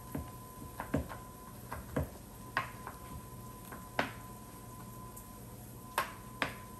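Chef's knife chopping cooked bacon on a wooden cutting board: irregular single knocks of the blade striking the board, with a longer pause midway.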